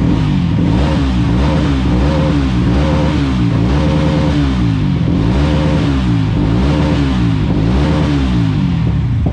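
Mahindra Mojo's single-cylinder engine, fitted with a cut-off exhaust, revved again and again at standstill: about eight throttle blips, the note rising and falling roughly once a second.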